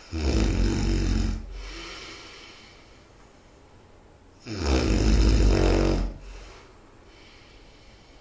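A person snoring loudly in sleep: two loud snores about four seconds apart, each trailing off into a quieter breath.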